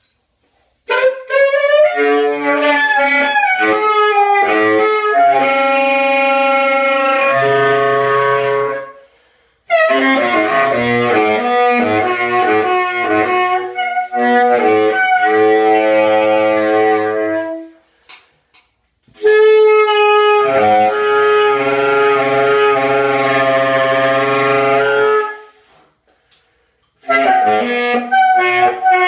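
Saxophone played free-jazz style: long phrases of held, overtone-rich notes with shifting pitches, starting about a second in and broken by short pauses.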